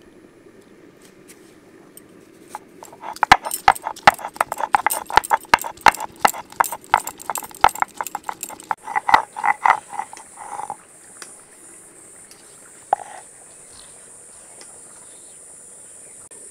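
Soaked whole spices being pounded with a grinding stone: a fast run of sharp stone-on-stone knocks, about four a second, that stops about ten seconds in, with one more knock a little later. A steady high hiss sets in partway through.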